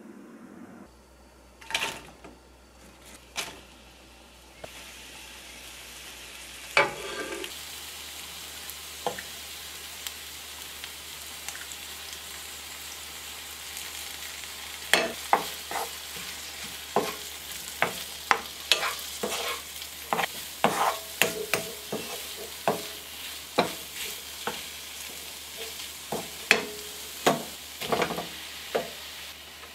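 Sliced large green onions, chili powder and garlic sizzling in oil in a nonstick wok, the hiss settling in a few seconds in. A wooden spoon stirs and scrapes them, clacking against the pan about once or twice a second through the second half.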